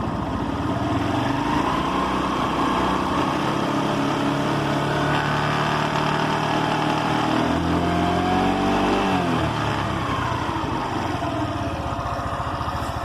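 Motorcycle engine revved in place: its pitch rises about a second in, climbs again to a peak around eight seconds, then falls back toward idle. It is being revved to find a rattle and vibration that start at medium-high revs, which the rider suspects come from the two gears inside the engine.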